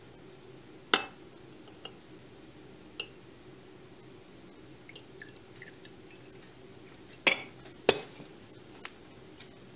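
Glassware handled on a table: a cut-glass decanter and a small stemmed glass clinking and knocking. There is a sharp clink about a second in and another at three seconds, each ringing briefly, and a pair of louder knocks close together near the end.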